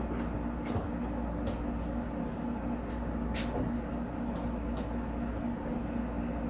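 Steady low mechanical hum with a few scattered light clicks, typical of a hand tool and screw hardware being handled.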